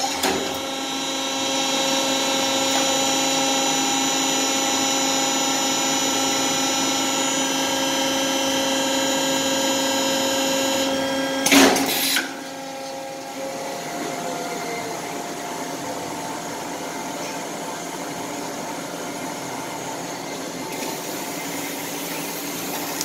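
LiteTone vinyl record press running through its pressing cycle: a steady mechanical whine with several held tones, then a short loud hiss about twelve seconds in, after which the machine carries on at a quieter, lower hum.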